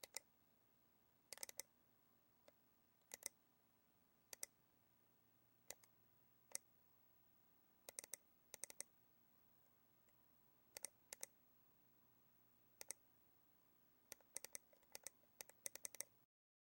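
Computer mouse buttons clicking, many times at irregular intervals: single clicks, double clicks and quick runs of clicks, coming thicker near the end.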